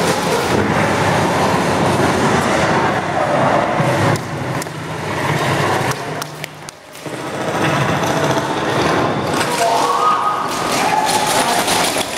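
Loud, dense jumble of indoor airsoft-game noise: players' voices mixed with thuds and clatter, dipping briefly about six and a half seconds in.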